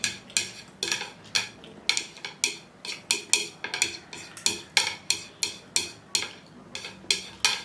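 Chopsticks clicking and tapping against a bowl while noodles are eaten: a quick, uneven run of sharp clicks, about three a second.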